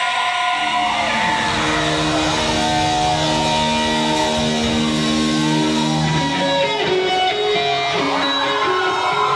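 Live rock band playing, with electric guitar to the fore: long held notes, some bending in pitch, over a steady band backing.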